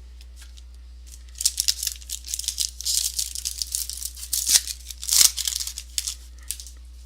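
Trading cards being handled: crisp rustling and clicking as cards are slid and flipped through the hands. It starts about a second and a half in, with two louder snaps near the end.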